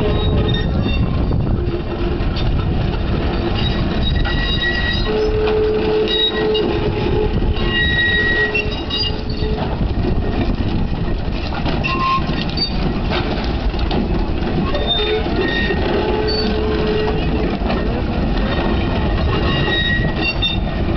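Early Los Angeles electric streetcar rolling along its track: a steady rumble of wheels on rail, with short high squeals and whines that come and go.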